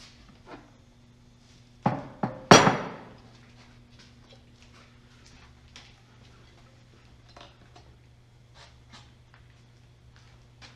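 Three quick metallic clanks about two seconds in, the last the loudest and ringing briefly, followed by scattered light clicks and taps, over a steady low hum.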